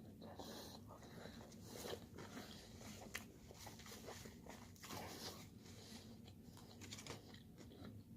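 Faint chewing with soft, scattered mouth clicks.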